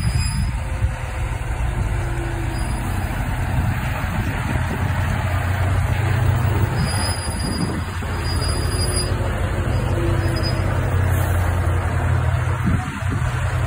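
Scania heavy-haulage truck's diesel engine running at low speed as it pulls a long low-loader trailer past, with a steady low drone and a hiss of tyres on a wet road.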